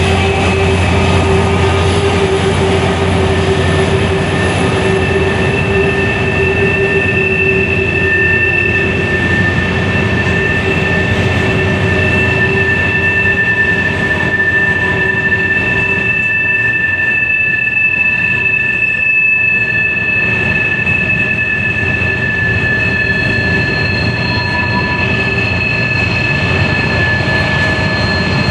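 Freight cars rolling past on a tight curve, steel wheels on rail rumbling steadily while wheel flanges squeal in two steady high tones. A lower drone from the diesel locomotive that has just gone by fades over the first several seconds.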